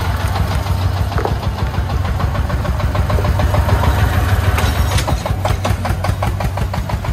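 Công nông farm truck's diesel engine running with a steady low hum and rapid, regular knocking. The knocks grow sharper and more distinct about four and a half seconds in.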